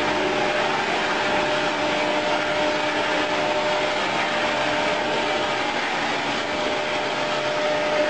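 Electric motor of a prototype electric car running steadily: a continuous whirring with a steady whine.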